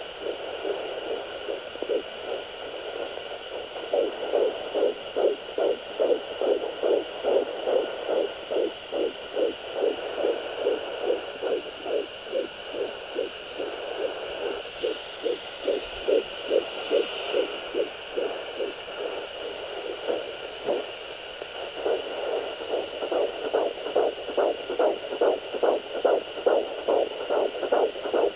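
Fetal heartbeat through a home fetal Doppler: fast, even whooshing pulses at about two and a half beats a second over a steady electronic hiss. The pulses weaken briefly about two-thirds of the way through, then return strongly.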